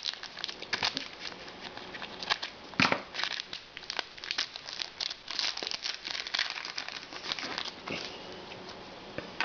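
A hockey card pack's wrapper being crinkled and torn open, an irregular run of crackles throughout.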